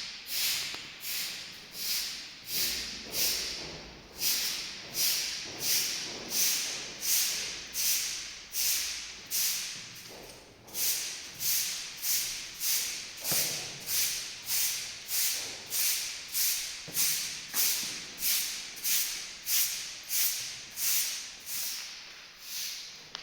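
Rhythmic brushing strokes, about two a second, each a short scratchy swish, with a brief pause about ten seconds in: bristles being swept or scrubbed over a hard surface.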